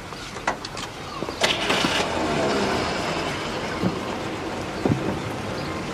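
A motor vehicle engine starting up and running, after a few sharp clicks, and getting louder about a second and a half in.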